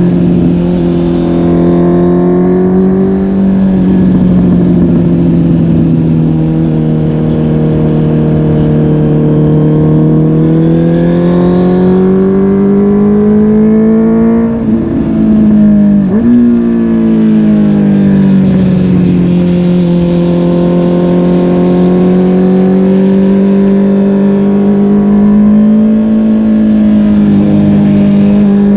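Honda CB650R's inline-four engine through a MIVV GP PRO Carbon aftermarket exhaust while riding. The engine speed rises and falls gently with the throttle, and about fifteen seconds in the revs climb quickly and then drop sharply before settling again.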